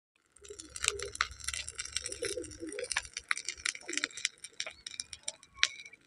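Wood fire crackling in a mud stove, with quick, irregular sharp pops.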